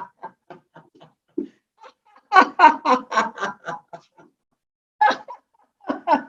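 Laughter yoga laughter: rhythmic "ha-ha-ha" laughing in quick pulses, about four a second. It comes in a few short runs with pauses between, the longest and loudest about halfway through.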